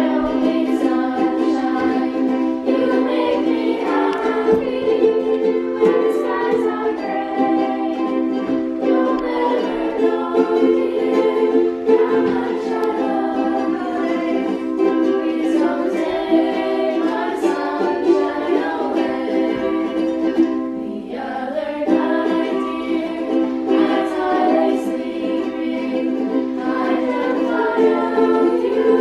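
A group of girls singing together to a strummed ukulele, with a violin also playing for part of the time.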